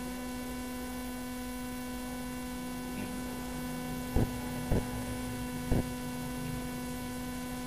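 Steady electrical mains hum with a buzzy edge from the recording setup. Three short, sharp clicks come about four to six seconds in, as a line is drawn on the screen.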